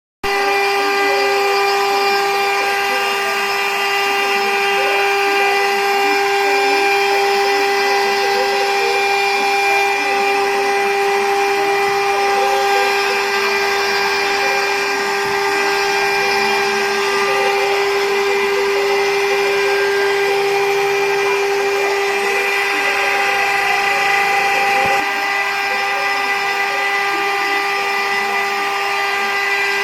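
CNC router spindle running at a steady whine while the machine cuts out sign letters.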